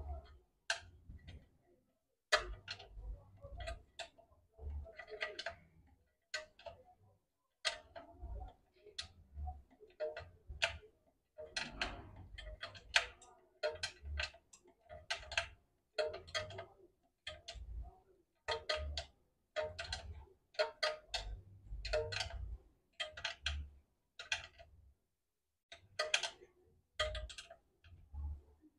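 Ratchet wrench clicking in short irregular runs, with dull metal knocks, as socket-driven bolts holding a generator's engine to its mount are tightened.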